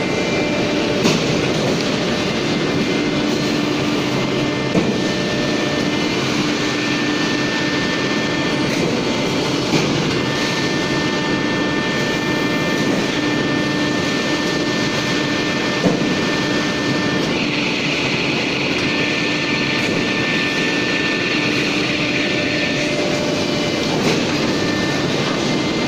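Automatic sheet-metal production line for drawer filing cabinets running: a steady machine hum with a constant whine from conveyor and press motors, and a few sharp metal knocks at irregular intervals. A higher whine joins for several seconds past the middle.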